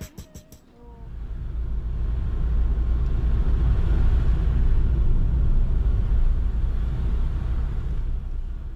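Car driving along a snowy road, heard from inside the cabin: a steady low rumble of tyres and engine that swells in over the first couple of seconds.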